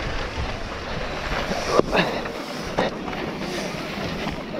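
Mountain bike descending a rough dirt trail at speed: wind buffeting the microphone over the rumble and rattle of tyres and bike, with two sharp knocks about two and three seconds in.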